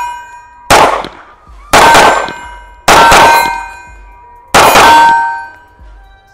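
Four 9mm shots from a ported CZ Shadow 2 Compact pistol, the first three about a second apart and the last after a longer pause. Each shot is followed by the ring of the steel target being hit.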